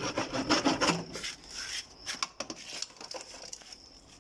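Hacksaw blade sawing through PVC pipe in rapid scraping strokes, stopping about a second in; a few faint scrapes and taps follow.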